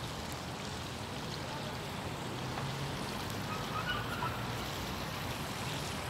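Plaza fountain water running steadily, with a low rumble underneath.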